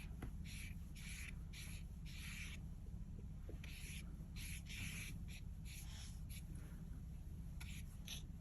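Paintbrush strokes on watercolour paper: short, soft, scratchy swishes, about two a second with a gap near the middle, over a steady low hum.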